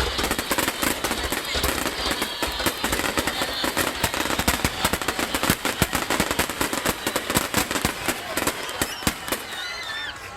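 Aerial fireworks going off in a dense, rapid crackling barrage of pops and bangs. It is heaviest in the middle and thins out near the end.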